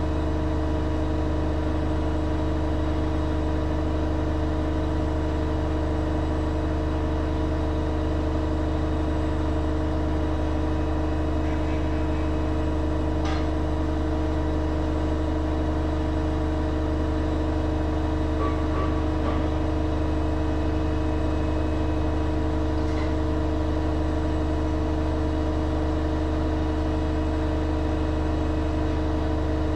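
Schulthess washing machine running a steady high-speed spin: a constant low hum with a steady whine above it and a few faint ticks.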